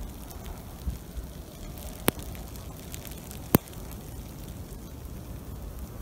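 Blizzard wind buffeting a phone microphone: a steady rushing noise with low buffeting, broken by two sharp clicks about a second and a half apart around the middle.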